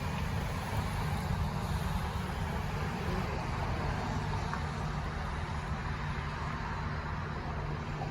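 Engine of heavy landscaping equipment running steadily at an even speed.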